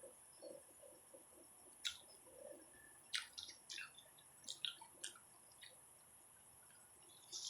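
Soft, scattered wet clicks and smacks of someone eating, about eight short ones over a few seconds, against near silence.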